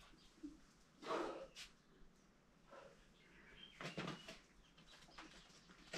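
Faint sounds of a climber working up a sandstone boulder: two short breathy bursts, about a second in and again near four seconds.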